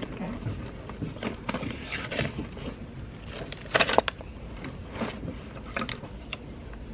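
Papers, cards and small items being handled on a cluttered office desk: irregular rustling and light clicks, with a couple of sharper knocks about four seconds in.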